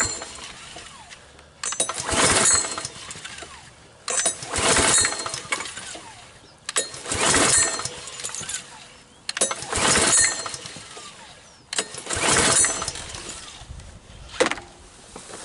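Predator 173cc engine on a push lawn mower cranked by its recoil pull cord with no fuel in it yet, five pulls about every two and a half seconds. Each pull comes with a clattering strike as the turning blade hits a piece of wood caught under the deck, and a short sharp knock follows near the end.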